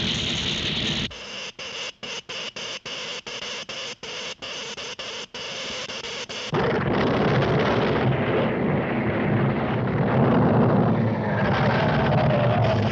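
Cartoon sound effects of an electric earthquake machine at work: a crackling electrical noise, pulsing with about a dozen brief cut-outs, then about six and a half seconds in a loud, continuous rumble as the induced earthquake hits.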